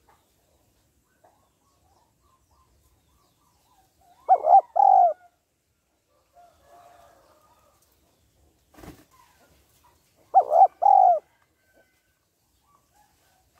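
Spotted dove cooing twice, each time a short phrase of quick coos ending in a longer note, with a single sharp knock between the two phrases.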